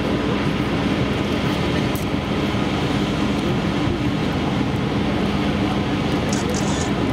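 A steady, unchanging machine drone with a constant low hum.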